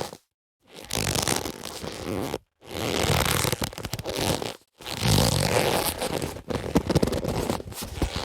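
Leather boxing gloves rubbing and creaking as they are handled, in runs of a second or two separated by short breaks, with some sharper knocks in the last couple of seconds.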